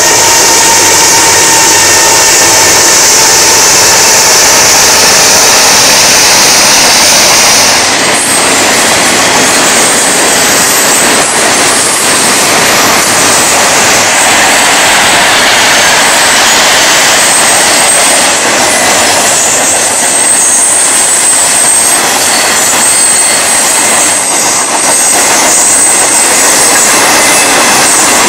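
BNSF freight train rolling past: a loud, steady rush of steel wheels on rail from the passing freight cars. A thin, high wheel squeal runs over it in the second half.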